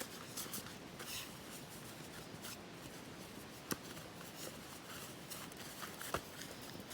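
Light rustling and handling of gear, with scattered small clicks and two sharper clicks, one about halfway and one near the end.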